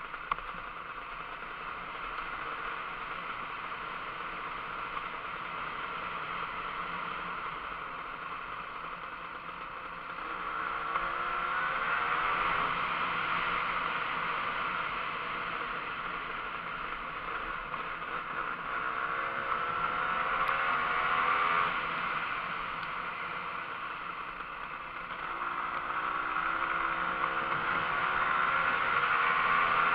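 Kawasaki KMX 125's two-stroke single-cylinder engine running under way, with a steady noisy rush behind it. Three times, about ten, eighteen and twenty-five seconds in, the engine gets louder and its pitch climbs as the bike accelerates.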